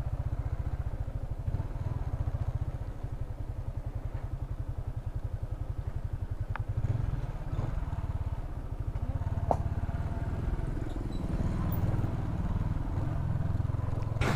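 Yamaha motorcycle engine running at low speed with a steady low putter while riding a bumpy dirt track, with a couple of short sharp clicks in the middle and the engine note shifting a little in the second half.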